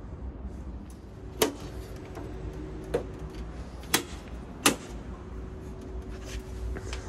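Four sharp knocks as the panels and control-box housing of a Daikin split-system outdoor unit are handled during reassembly, the first about a second and a half in and three more close together a few seconds later, over a faint steady hum.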